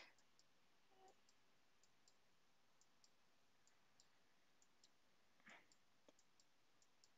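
Near silence: room tone with a few very faint, scattered clicks, one slightly stronger about five and a half seconds in.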